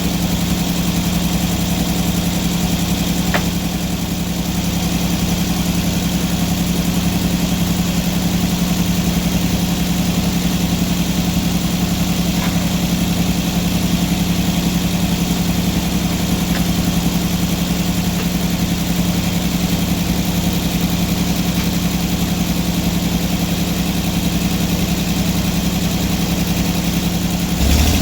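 Engine of an antique sawmill running at a steady idle with an even low pulsing, then revving up sharply near the end.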